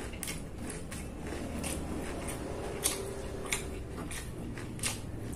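A person chewing food close to the microphone, with wet mouth smacks and clicks at irregular intervals, the sharpest about three seconds in.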